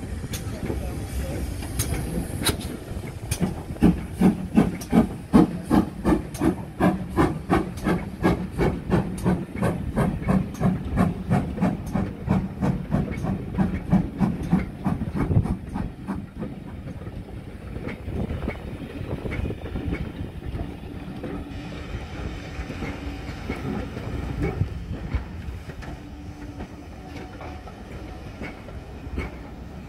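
Steam locomotive working under steam, its exhaust chuffing in a steady beat of about two a second, loudest about five seconds in. The chuffing fades after about sixteen seconds, leaving a fainter rumble of the train with a hiss of steam.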